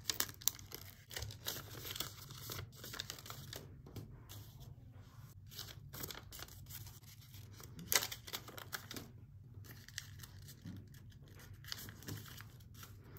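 Origami paper rustling and crinkling under the fingers as the paper bookmark and its cut-out ear pieces are handled, with many short irregular scratchy sounds like small bits of tearing or peeling.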